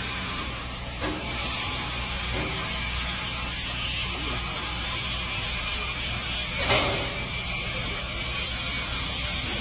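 Automatic charcoal grilling machine running: a steady motor hum under a hiss, with a short clack about a second in and another near seven seconds.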